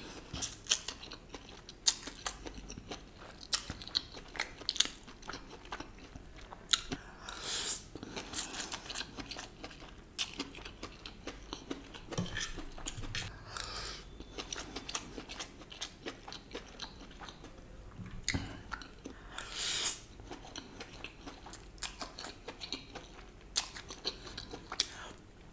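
Close-miked eating of Schezwan chicken noodles: chewing and slurping, with many short sharp clicks throughout and a couple of longer slurps.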